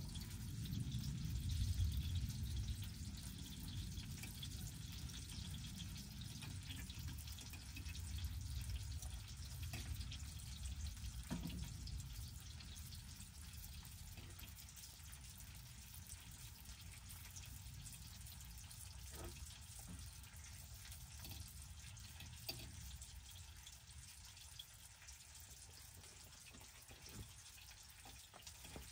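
Meat sizzling faintly in a pan on a wood stove's top, with a few light clicks of a utensil against the pan. A low rumble is strongest at the start and fades over the first ten seconds or so.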